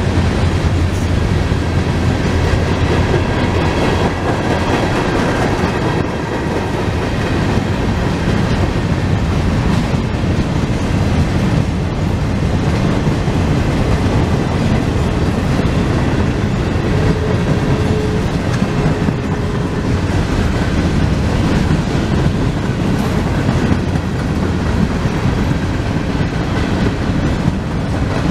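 A CSX freight train's cars (boxcars, tank cars and covered hoppers) rolling past trackside: a steady, loud rumble of wheels on the rails with clacking over the rail joints. The tail of a horn blast dies away in the first second.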